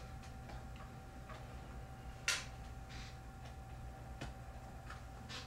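Scattered small clicks and taps from handling a computer RAM module, with one sharper, louder click a little over two seconds in, over a faint steady hum.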